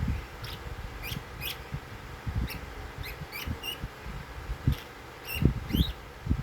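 Lovebird giving short, high squeaky chirps, often in quick pairs, scattered throughout, as it sleeps. Soft low thuds sound underneath, the loudest a little past five seconds in.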